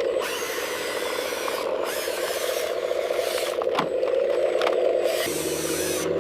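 Small electric motors of an RC excavator whirring steadily while its bucket scrapes through soil and gravel, with a couple of short knocks partway through. About five seconds in, the motor note changes and a lower hum comes in.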